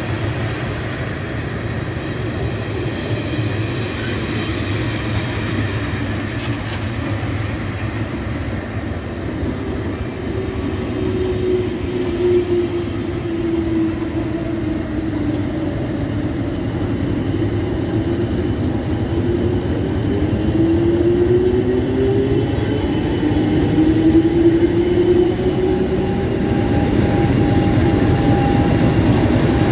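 Passenger coaches of a railtour rolling slowly past on the rails, with a steady rumble and a wavering whine that rises and falls midway. Near the end the sound grows louder as the Class 50 diesel locomotive 50008 at the rear of the train comes alongside.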